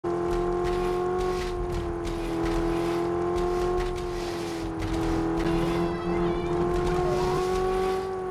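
Car engine running steadily at high revs, its pitch drifting slightly, with a brief wavering squeal about six seconds in.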